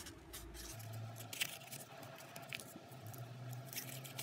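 Faint rustling and small crisp crackles of folded paper being pressed and adjusted between the fingers as its pleats are creased.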